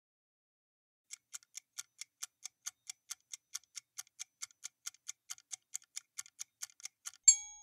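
Clock-like ticking sound effect of a quiz countdown timer, starting about a second in at about four and a half ticks a second, then a loud bright ding near the end, the chime of the answer reveal.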